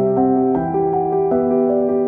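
Cinematic piano music, held low notes under a melody whose notes change every half second or so.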